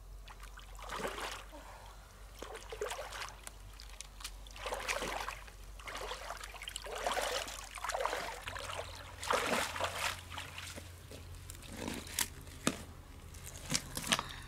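Shallow stream water sloshing and splashing in a string of swishes, one every second or two, as someone wades and sweeps a hand through it. A few sharp knocks come near the end.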